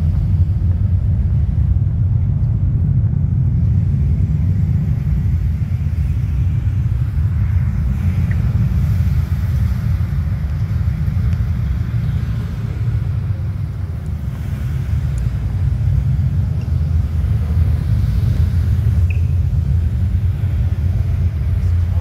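A loud, steady, deep rumble with a faint hiss above it.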